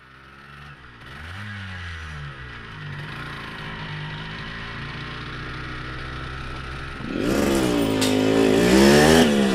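Motorcycle engine approaching and revving, growing louder with its pitch rising and falling on the throttle, and getting louder again about seven seconds in as it draws close.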